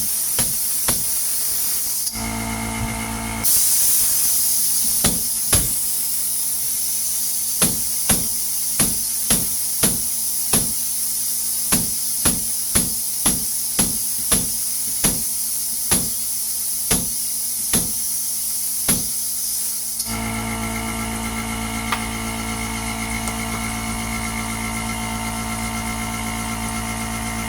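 Repeated sharp taps, about one to two a second, over a steady hiss. Near the end the taps stop and a steady hum with several tones takes over.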